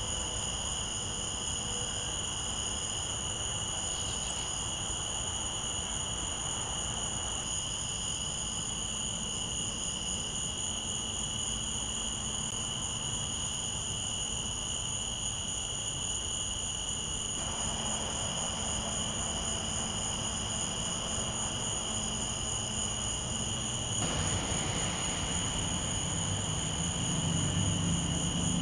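Night chorus of crickets: a steady high trill that never lets up, over a low background hiss. A low noise swells louder near the end.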